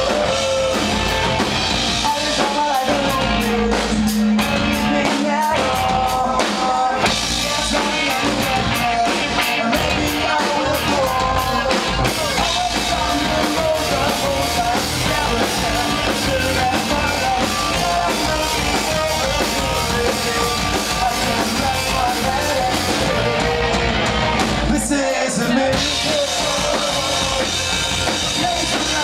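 A rock band playing live: sung lead vocals over electric guitars, bass guitar and a drum kit, loud and steady.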